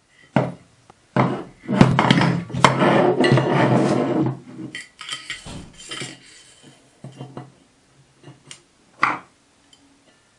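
Aluminium glass-scale housing and parts of a lathe digital readout clattering and scraping against each other as they are handled and slid together, with a busy stretch of scraping and clinking lasting a few seconds, then scattered knocks, the sharpest near the end.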